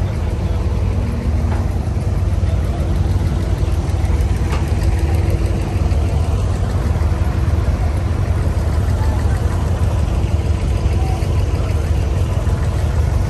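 Inboard diesel engine of an abra (Dubai Creek wooden water taxi) running with a steady low drone.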